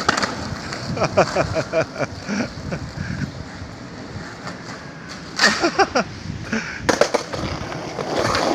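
Skate wheels rolling over paving, with clusters of sharp clacks and short squeaks about a second in, past halfway and near the end.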